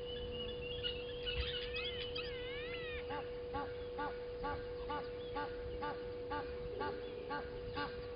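Birds calling at a waterhole: a burst of rising and falling whistled calls, then, from about three seconds in, one bird gives a steady series of honks, about two a second. A steady hum runs beneath them throughout.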